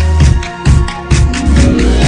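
Electronic dance music with a steady, heavy bass beat.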